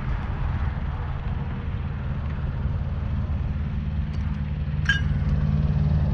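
Heavy truck engine idling with a steady low hum, growing slightly louder toward the end. A single short metallic clink sounds about five seconds in.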